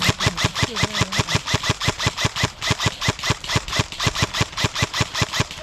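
Airsoft electric gun firing one long sustained burst of rapid, evenly spaced shots, about eight a second, each a sharp click with a low thump.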